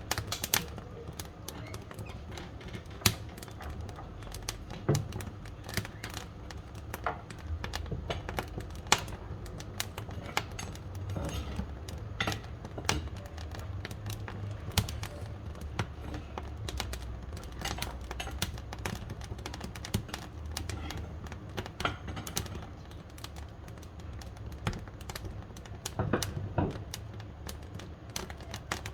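Firewood burning in a wood-burning stove, crackling with irregular sharp pops and snaps over a low rumble.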